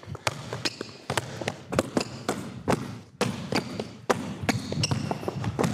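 A basketball being dribbled hard on an indoor court floor: repeated sharp bounces, about three a second.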